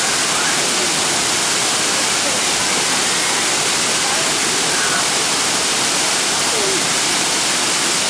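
Waterfall cascading over rock ledges: a loud, steady rush of falling water, with faint voices underneath.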